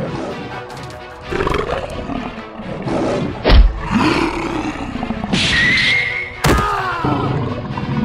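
Cartoon fight sound effects over background music: big-cat roars and growls, a loud thump about three and a half seconds in, and a high screech near the middle.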